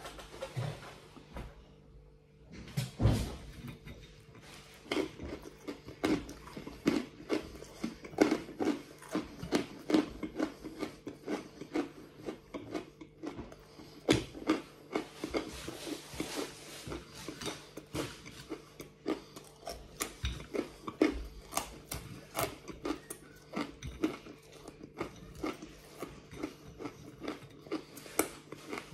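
Close-up crunching and chewing of crunchy fried garlic pieces, mouthful after mouthful, starting about three seconds in: a dense run of short, sharp crunches, several a second.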